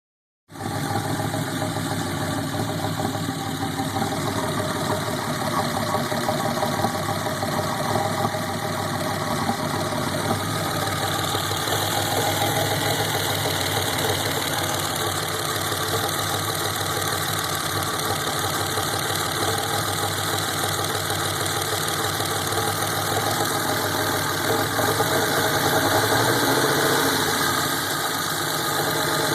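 1987 Buick T-Type's V6 engine idling roughly, with a brief slight rise in engine speed near the end.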